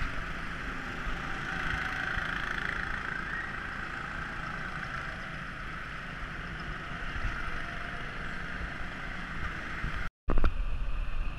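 Small engines of rental go-karts running around a track, a steady distant drone. About ten seconds in it cuts out for a moment, and a louder, uneven rumble follows.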